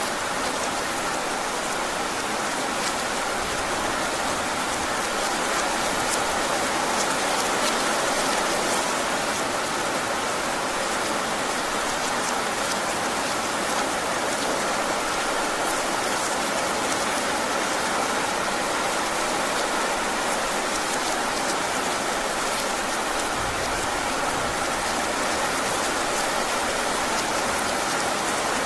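Heavy rain falling steadily, a dense even hiss with fine pattering of drops on surfaces.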